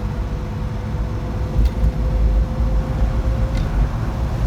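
Slant-six Plymouth Duster driving: a loud, steady low rumble of engine and road with a faint steady whine above it.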